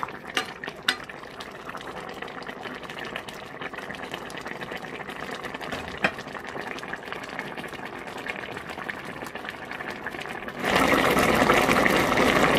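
Pork and mustard-greens stew bubbling in a steel pan, with a few light clinks of a ladle. Near the end a louder, dense shaking noise starts as a shaker of mustard powder is shaken over the pot.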